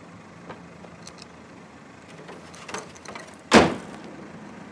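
A Lexus sedan's hood slammed shut: a single loud bang about three and a half seconds in, after a few light clicks and knocks as the hood is handled.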